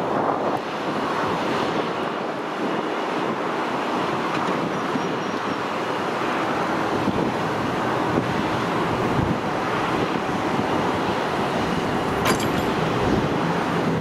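Steady, distant jet roar of an American Airlines Boeing 777 climbing out after takeoff, mixed with wind buffeting the microphone.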